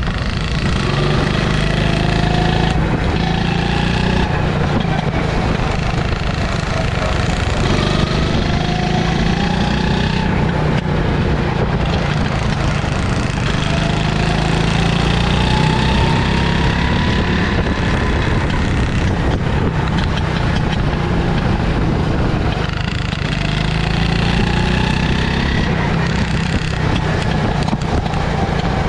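Go-kart engine running hard under the driver, its pitch climbing and falling again and again as the kart speeds up on the straights and slows for the corners.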